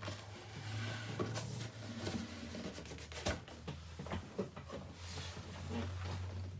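Clipper box and its packaging being opened and handled: irregular rubbing, scraping and light clicks and knocks, over a steady low hum.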